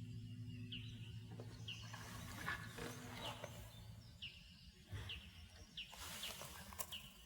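Small bird calling with short, high chirps repeated roughly once a second, faint. Low sustained harp notes die away at the start.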